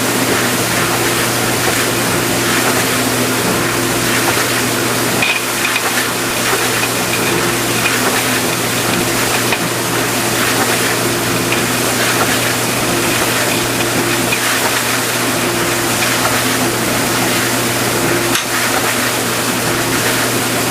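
Vintage KitchenAid Supurba KDS-18 dishwasher running: water spraying and splashing steadily inside the tub over the steady hum of its pump motor.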